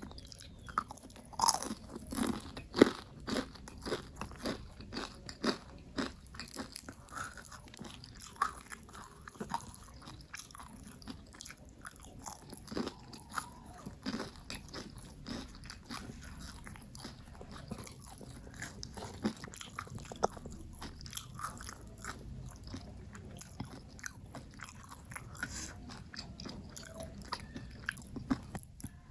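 Close-miked eating: crunchy bites and chewing of crisp fried food. The loud, sharp crunches come thick in the first several seconds, then turn sparser and softer.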